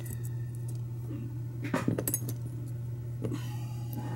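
A few light metallic clicks and taps, bunched about two seconds in with another a little later, as tiny brass lock pins are handled on a plastic pinning tray. A steady low hum runs underneath.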